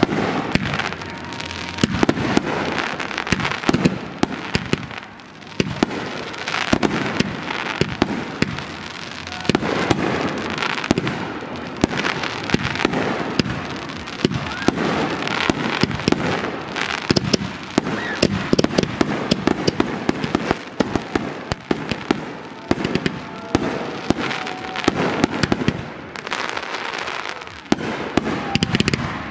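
Consumer (Class C) aerial fireworks: a near-continuous string of sharp bangs and crackles from shells bursting overhead.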